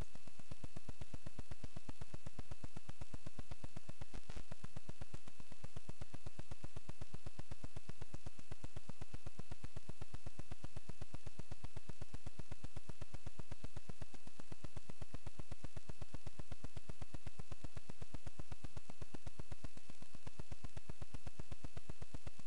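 Steady electronic buzz with a fast, even pulse and a thin, steady high whine, unchanging throughout; a single click about four seconds in.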